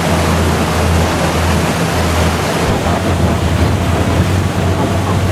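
Motorboat under way: a steady rush of water and wake along the hull over the low, steady hum of the boat's engine, with wind on the microphone. The hiss eases slightly about halfway through.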